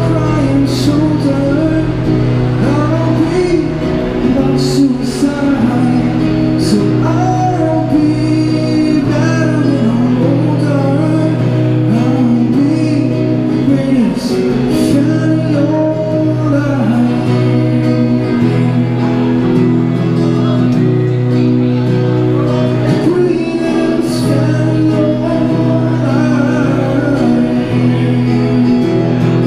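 Male singer-songwriter singing with a strummed Yamaha acoustic guitar, both amplified through a Roland Cube Street EX battery amp. The voice is strongest in the first half, with the guitar carrying on underneath.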